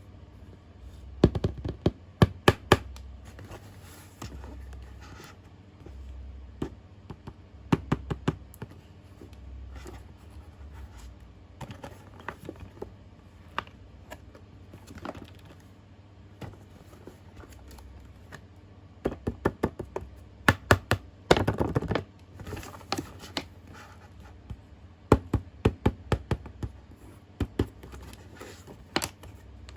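Hands handling a boxed remote-control toy truck and its packaging: clusters of sharp taps, clicks and knocks of cardboard and plastic, with quiet gaps between them.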